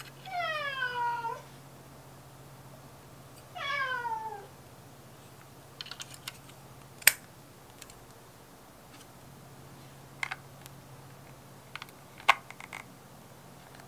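An animal calls twice, each call about a second long and falling in pitch, the second about three seconds after the first. Later come several sharp plastic clicks as a plug converter is fitted onto a power adapter's prongs and a charger plug is pushed into a nail drill, the loudest about seven and twelve seconds in.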